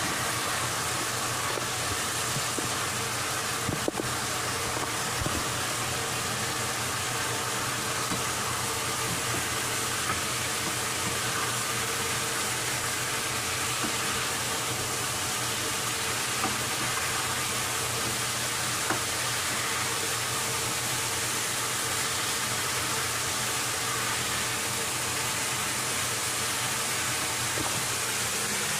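Chicken feet in sweet soy sauce sizzling in a frying pan over a gas burner, under a steady hiss and hum, with a few light knocks as the wooden spatula stirs them.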